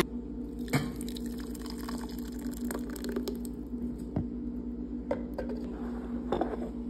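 Spoon stirring thick blended tomato-and-chile salsa in a bowl: scattered wet drips and light clicks, over a steady low hum.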